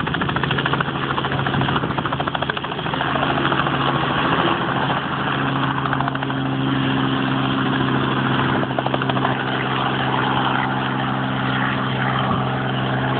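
Small helicopter lifting off and flying away: its engine runs steadily with a fast rhythmic rotor beat, strongest in the first few seconds.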